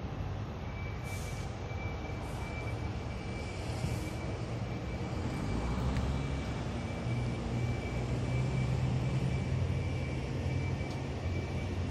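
A vehicle engine running steadily with a low hum, a little stronger in the second half, with a faint steady high whine above it.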